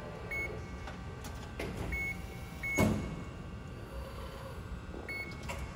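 Amada FBD-5020 hydraulic CNC press brake running with a steady low hum, several short high beeps, a few clicks, and one loud clunk about three seconds in.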